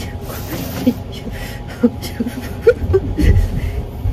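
A woman giving short, pained laughs and whimpers in quick bursts, over the steady low rumble of the Sunrise Izumo sleeper train running.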